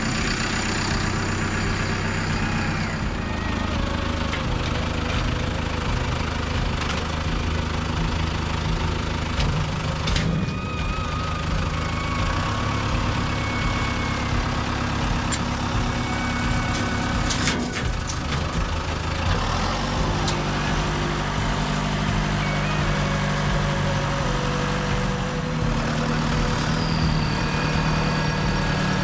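Bulldozer's diesel engine running, its pitch shifting up and down every few seconds, with a couple of sharp knocks along the way.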